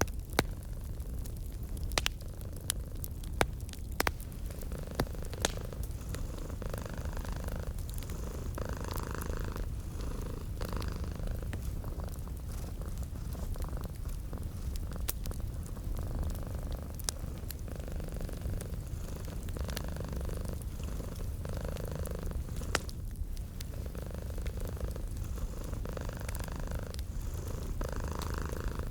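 Domestic cat purring steadily, swelling and fading with each breath about every two seconds. A wood fire crackles under it with sharp pops, several in the first few seconds and a few scattered later.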